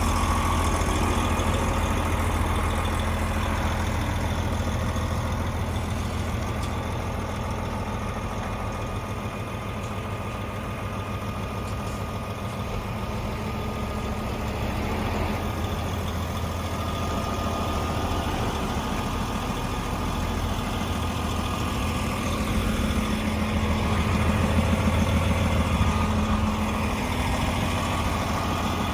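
DAF XG 480 truck's PACCAR MX-13 six-cylinder diesel idling steadily. It grows a little quieter through the middle and louder again near the end.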